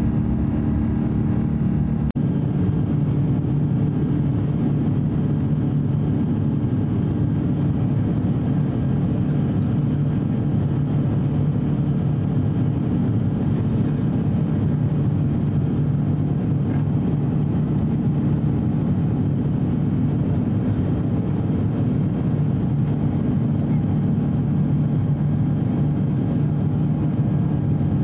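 Steady in-cabin noise of an Airbus A350-900 shortly after takeoff: its Rolls-Royce Trent XWB engines and the airflow make an even, low rumble. There is a brief click about two seconds in.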